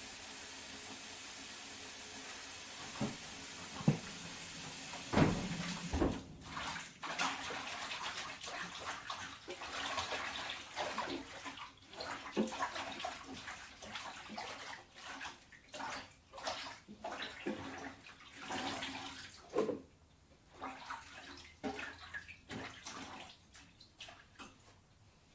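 Water at a kitchen sink: a steady rushing hiss for about six seconds that stops abruptly, then irregular splashing and sloshing in quick, uneven bursts, typical of produce being rinsed by hand.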